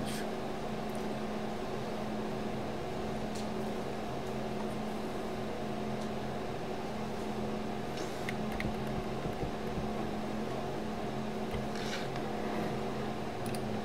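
Room tone: a steady mechanical hum with a low drone, and a few faint clicks about eight seconds in and again near twelve.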